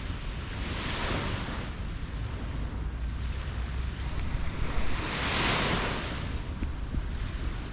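Small waves washing up on a sandy beach, the surf swelling twice, about a second in and again past the middle, with wind rumbling on the microphone.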